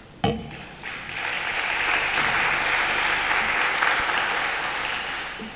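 Audience applause that builds about a second in, holds steady and fades toward the end, preceded by a single sharp knock just after the start.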